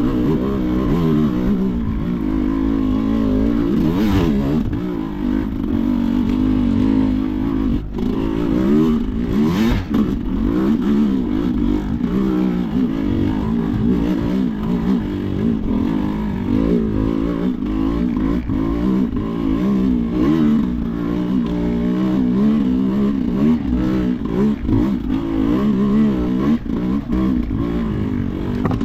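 Sherco enduro motorcycle engine under constant throttle changes, revving up and falling back over and over, with a few sharp knocks about 4, 8 and 10 seconds in.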